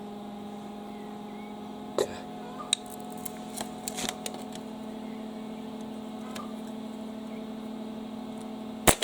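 Steady electrical hum from a welder's engine-start supply powering a starter test, with a few light clicks of leads being handled. Near the end a single sharp, loud snap as a live lead is touched to the starter's terminal.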